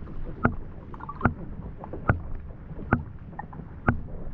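Muffled underwater sound from a camera held in lake water, with a soft, regular knock a little more than once a second.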